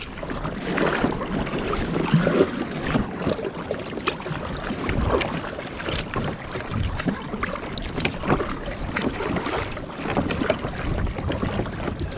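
Water lapping and splashing against a fishing kayak's hull, with irregular small knocks and some wind on the microphone.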